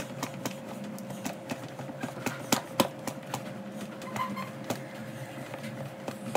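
Cheese being grated on a stainless steel box grater standing on a plastic plate: irregular scraping strokes and sharp clicks.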